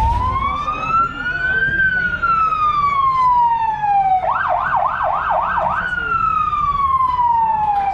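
Electronic police siren on a sheriff-liveried American sedan. It sounds a slow wail that rises and then falls, switches to a fast yelp of about five quick sweeps a little past halfway, then drops back to a falling wail.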